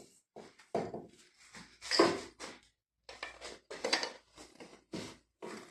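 Irregular clicks, knocks and rattles of plastic and metal parts being handled as a chainsaw's recoil starter housing is taken off to expose the flywheel, with the loudest knocks about two and four seconds in.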